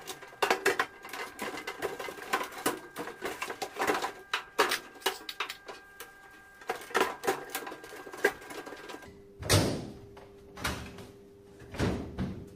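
Sheet-metal rear panel of a tumble dryer being handled and fitted against the cabinet, giving irregular metallic clicks, rattles and knocks, with a heavier thump about three-quarters of the way through.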